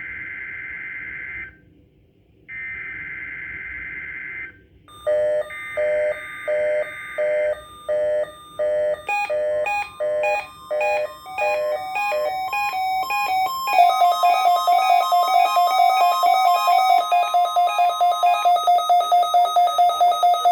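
NOAA Weather Radio SAME digital header: three harsh data-burst screeches, each about two seconds long with short gaps between them, sent to trigger alert receivers for the Required Weekly Test. An electronic alert alarm follows. It starts as beeps that step through changing pitches, about two a second, and from about halfway through becomes a fast pulsing tone at about four or five pulses a second.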